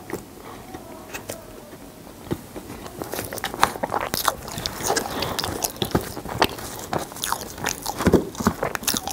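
Close-miked eating of cookies-and-cream ice cream with Oreo pieces: quiet mouth and chewing sounds at first, then from about three seconds in a plastic spoon scraping and digging through the frozen ice cream in its plastic tub, a dense run of clicks and scrapes.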